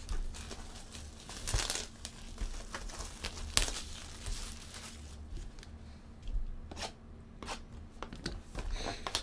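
Plastic shrink wrap on boxes of Panini Classics baseball cards crinkling and tearing as the boxes are handled, with a few sharp taps of the cardboard boxes, the loudest about three and a half seconds in.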